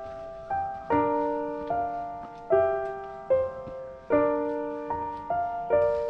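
Background music: a piano playing chords and melody notes, each struck and left to fade, about two notes a second.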